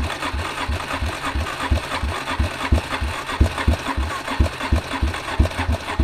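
Suzuki LT-Z400 ATV's electric starter cranking its single-cylinder engine, with even chugs at about three or four a second, and the engine never catches. The carburetor is flooded with fuel, which the owner blames on a float valve that is not shutting the fuel off.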